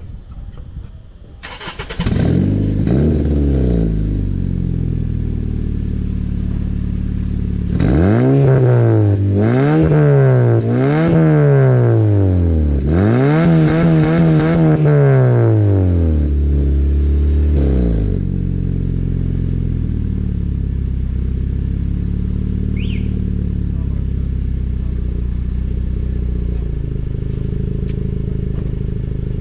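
Honda Civic 2.0 four-cylinder engine started and heard through its Superedition muffler and twin-tip exhaust. It catches about a second and a half in and gives a short rev, then idles. A string of throttle blips follows, roughly a second and a half apart, one held up for about three seconds, before it settles to a steady idle for the last ten seconds or so.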